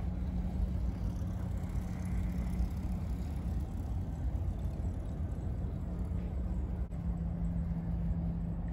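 Steady low rumble of distant road traffic, with a faint engine hum that drops away for a few seconds partway through and returns near the end.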